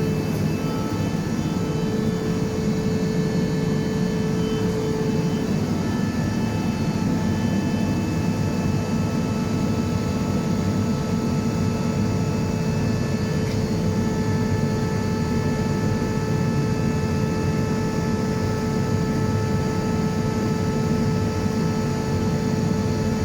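Atlas Copco GA 11 FF 11 kW oil-injected rotary screw air compressor running steadily under load: an even hum with a steady tone on top, described as extremely silent for a compressor. It is building pressure in its air receiver toward its 9 bar setting.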